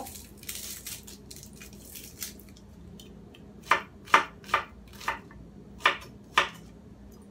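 Dry rustling as a shallot is peeled by hand, then a kitchen knife slicing it on a wooden cutting board: about six sharp, unevenly spaced knocks starting a little past halfway.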